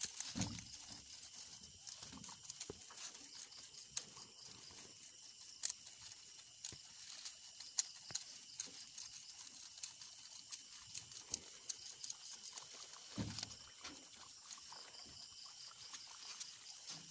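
Several guinea pigs chewing and rummaging through a pile of fresh grass leaves: irregular crisp crunching and rustling, with a couple of soft low thumps as they shift about.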